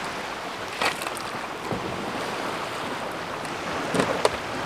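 Small waves washing onto a pebble shore, a steady hiss, with a few light knocks about a second in and twice near the end.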